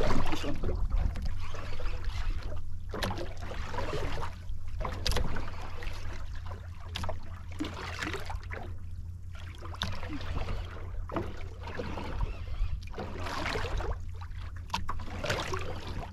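Wind rumbling on the microphone and water washing against a small outrigger boat's hull, rising and falling irregularly, with a few sharp clicks.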